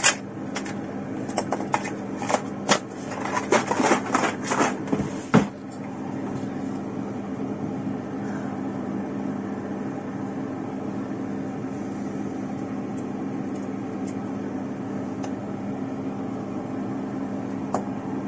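Quick small clicks and metal scrapes of a tiny flat-blade screwdriver bending small connector springs, lasting about five seconds; after that only a steady low hum.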